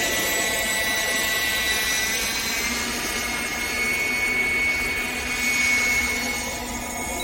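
Electric ducted fan of a Freewing F-22 Raptor RC jet, a 90mm EDF, running with a steady high whine and rushing air; the whine rises slightly in pitch about two and a half seconds in.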